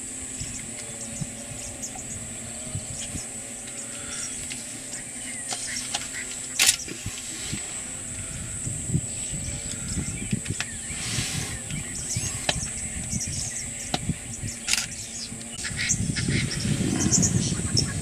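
Steady high-pitched insect chorus at dusk, over a low rumble, with a few scattered knocks and one sharp knock about a third of the way in.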